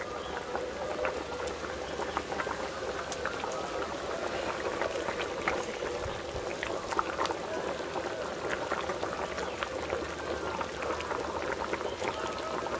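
Fish curry with potatoes and ridge gourd boiling in a kadai, with a steady crackle of popping bubbles.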